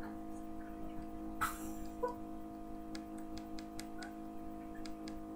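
A steady low hum of several held tones sits under a short hiss about a second and a half in, then a quick run of light clicks in the second half.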